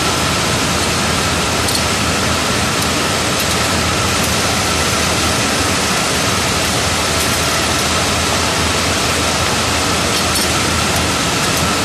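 Bank of tape-yarn winding machines running steadily: a loud, even machine noise with a faint steady whine through it.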